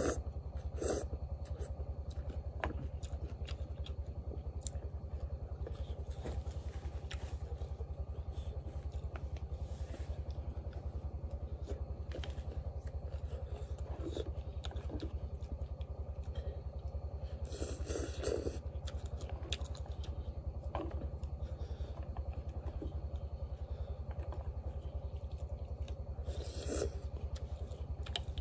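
A small engine runs steadily, a low pulsing drone, with a few short slurps of noodles on top: about a second in, about two-thirds of the way through and near the end.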